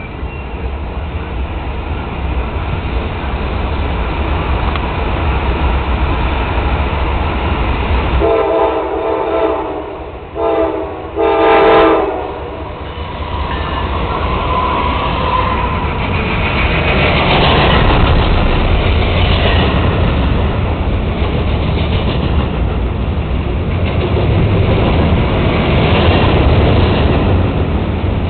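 Diesel freight train approaching and passing: its rumble builds, then the locomotive's multi-tone horn sounds three blasts, long, short, long, about a third of the way in. The locomotives go by and a long string of open hopper cars rolls past with steady wheel-on-rail clatter.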